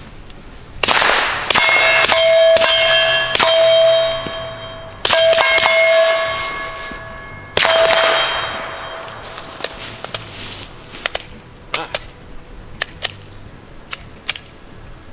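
Suppressed 9mm pistol shots, about six in a quick string, each followed by a long metallic ring that fades over a second or two. A few light clicks of the pistol being handled follow near the end.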